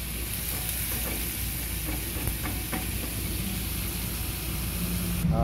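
Cubed raw pork starting to fry in a nonstick pan, a steady sizzle, with a couple of faint clicks in the middle. The sizzle cuts off abruptly just before the end.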